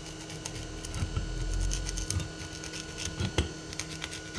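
Knife blade drawn through foam along a ruler, a scratchy rasp made of many small quick clicks. There is a low rumble about a second in and a sharper click about three and a half seconds in.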